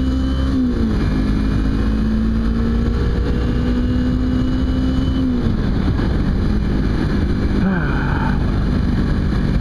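Kawasaki Ninja 250 engine running at a steady cruising pitch with wind rush on the helmet microphone; its pitch drops about half a second in, again around five and a half seconds in, and once more near eight seconds in as the bike slows.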